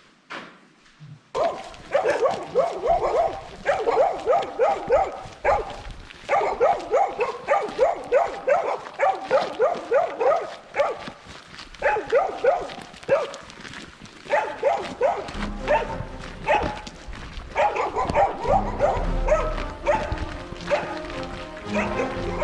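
A dog barking in rapid runs of short barks, several a second, in bursts with short pauses, starting about a second in. A low rumble joins in during the second half.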